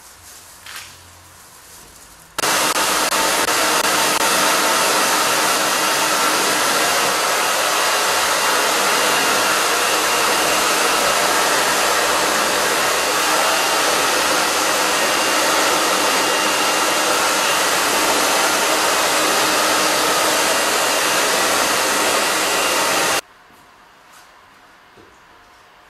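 Handheld hair dryer blowing hair: a loud, steady rush of air that starts abruptly about two seconds in and cuts off a few seconds before the end.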